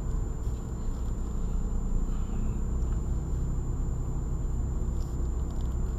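Steady low rumble of a car's engine and tyres heard from inside the cabin while driving slowly, with a faint constant high-pitched tone over it.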